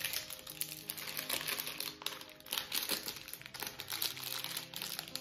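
Crinkling and rustling of a clear plastic licorice-stick pack as it is handled and pulled open.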